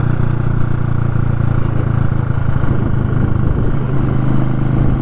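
Motorcycle engine running steadily at highway cruising speed, a low even drone with road and wind noise, heard from the rider's helmet.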